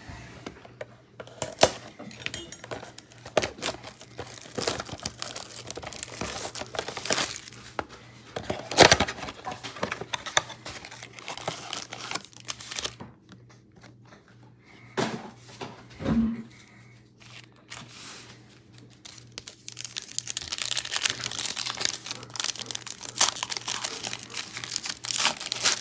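Foil trading card packs being torn open and their wrappers crinkled, with scattered clicks and rustles as the packaging and cards are handled. The crinkling turns dense and continuous in the last several seconds.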